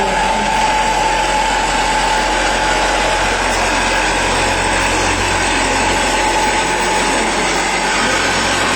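Cat 262C skid steer's diesel engine running steadily, with its vibratory drum compactor attachment, a steady whine riding over the engine noise.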